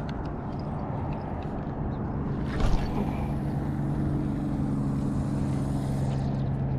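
A motorboat engine drones steadily with an even low hum, coming in about three seconds in. It follows a brief rush of noise.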